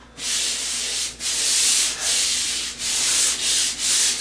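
Sandpaper on a swivel-head pole sander rubbing back and forth across a bare drywall ceiling: a run of about six hissing strokes, each under a second, coming quicker near the end. This is the ceiling being sanded smooth after popcorn removal, ready for primer.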